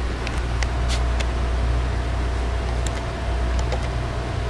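Steady low electrical hum, with a faint steady high tone joining about half a second in and a few light clicks scattered through.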